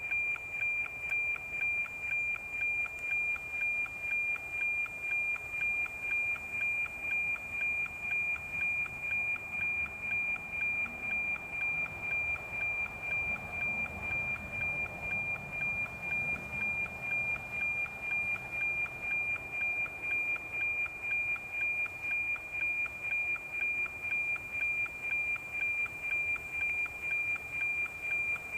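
NOAA 19 weather satellite's APT image signal, FM-demodulated by an RTL-SDR receiver: a steady high-pitched tone with a regular tick-tock of about two beats a second, over a light radio hiss. Each beat is one scan line of the picture being transmitted, so the signal is being received cleanly.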